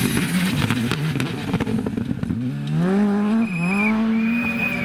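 Škoda Fabia R5 rally car at full throttle on gravel, with stones rattling against it. About halfway through the engine note rises hard, dips at an upshift and climbs again, and a thin high whine sits over it near the end.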